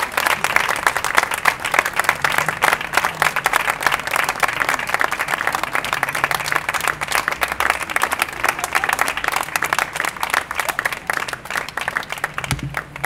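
Small audience clapping and applauding, the applause tapering off near the end.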